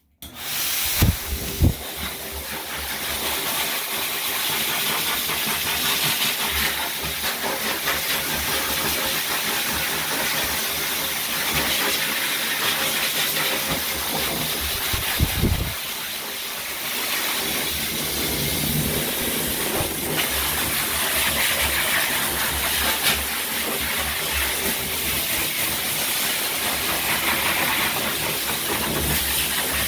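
Dog-grooming blow dryer switched on and blowing a steady, noisy rush of air through its hose onto a wet dog's coat to dry it after the bath. A couple of low thumps stand out about a second in and again midway.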